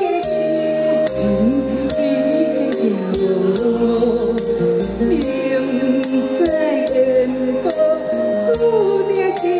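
A woman singing a ballad into a microphone, with instrumental accompaniment and a steady beat.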